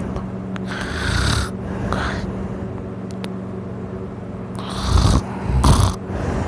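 A man snoring loudly in a deep, drunken sleep: breathy snores about a second and two seconds in, then two louder snores with a low rumble near the end.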